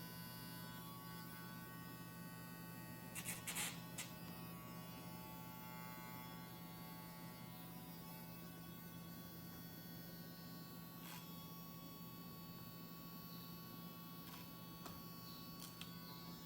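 Casfuy two-speed electric dog nail grinder running steadily with a low electric hum, with a few short clicks about three seconds in and once more later on.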